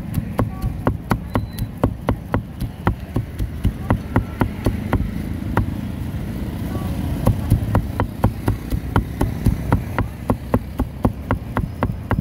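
Meat cleaver chopping grilled pig head and pork on a chopping block: quick, regular strikes about three a second, in runs with a brief pause partway through, over a steady low background rumble.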